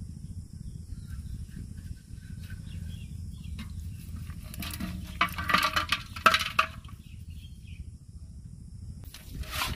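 A catch of small fish and snails shaken out of a mesh net trap into a metal pot: a flurry of rattles and clatters, loudest about five to six and a half seconds in, with another short burst near the end, over a low steady rumble of water.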